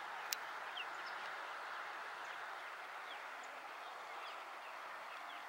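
Faint scattered bird chirps over a steady background hiss, with one sharp click about a third of a second in.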